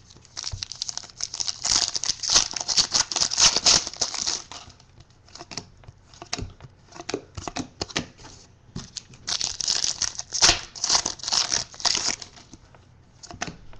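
Trading-card pack wrapper being torn and crinkled in two stretches of crackling, with cards clicking and sliding against each other in between.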